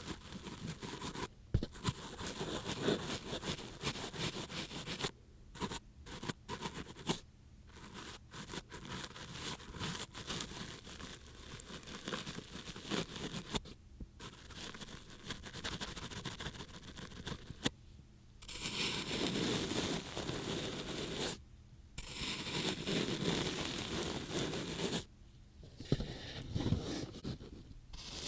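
Ear-cleaning ASMR: an ear pick scraping and scratching at a microphone's ear in irregular strokes with short pauses. About two-thirds of the way in it turns to a denser, steadier rustling rub, with two brief breaks.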